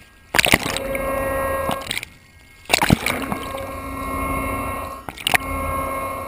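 Water sloshing and slapping around a camera just under the sea surface, with three sharp splashes and two brief muffled drop-outs as it bobs at the waterline. Behind this a steady hum made of several even tones runs through the water, the sound of the research ship's machinery heard underwater.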